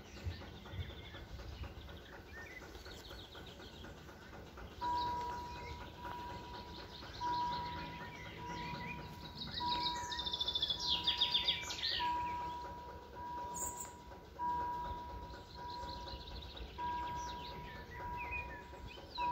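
Level-crossing warning signal sounding an electronic beep that repeats evenly, about one a second, starting about five seconds in as the crossing lights turn red ahead of the barriers lowering. Birds sing throughout, with a loud rapid trill near the middle.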